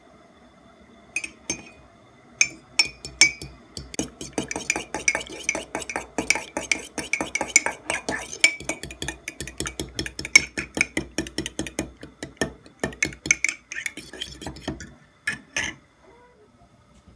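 A metal fork beats two raw eggs in a ceramic mug, clinking against the mug in quick, regular strokes. A few separate taps come first, then steady whisking of several strokes a second, which stops about fifteen seconds in after a couple of last taps.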